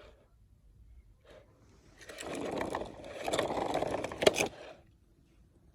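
Toy car's plastic wheels rolling and scraping across a hard surface for about three seconds, with a sharp click near the end.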